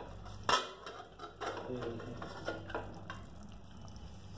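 Pressure cooker lid being worked loose and lifted off. There is a sharp metal clank about half a second in, then scraping and light clinking of metal on metal.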